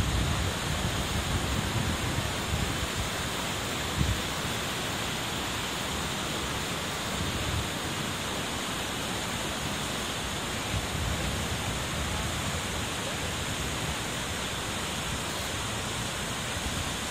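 Steady rushing of a muddy river in flood after heavy rain, the Katsura River churning through rapids and pouring over a weir. A brief low knock about four seconds in.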